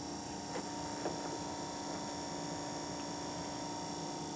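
Small 12-volt DC motor running unloaded with a steady hum, with two light clicks about half a second and a second in.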